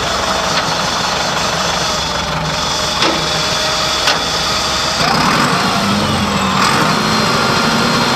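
New Holland 6610S tractor's diesel engine idling steadily, with two brief knocks about three and four seconds in. About five seconds in, the engine note changes and grows a little louder.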